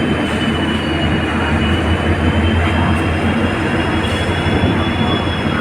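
EMD diesel locomotive (Indian Railways WDP4D) moving light, its 16-cylinder two-stroke EMD 710 engine giving a steady low hum, with a steady high-pitched whine over it.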